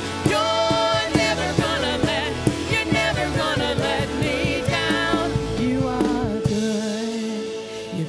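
Live worship band playing a song with drum kit, keyboard, guitars and sung vocals. About six seconds in the drums drop out, leaving a held keyboard chord and softer singing.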